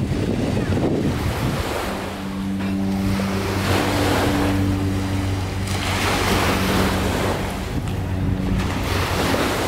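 Wind buffeting the microphone over small harbour waves lapping on the sand, the rush swelling and easing every few seconds, with a low steady hum underneath.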